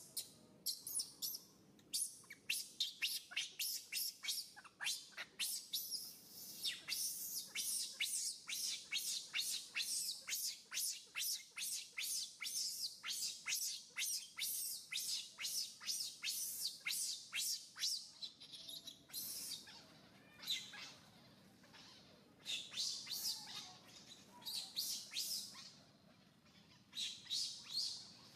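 Infant macaque crying: rapid high-pitched squeals, about three or four a second, then coming in shorter bursts with pauses in the last third. It is a distress cry of a baby kept from nursing by its mother.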